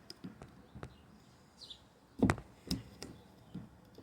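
Knocks and clicks of a pocket knife and hard plastic endmill boxes being handled, with a sharp knock a little after two seconds in and another about half a second later.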